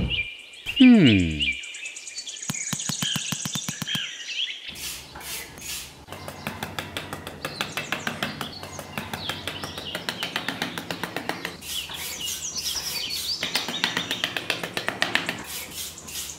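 Small metal hand trowel scraping and patting sand in quick, repeated strokes, with birds chirping in the background. About a second in comes a loud sound that falls in pitch.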